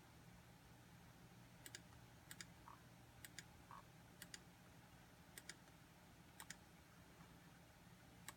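Faint clicking from a computer's keys or mouse buttons: seven quick double clicks, each a press and release, about a second apart. There are two short faint tones between the second and third clicks, over a low steady hum.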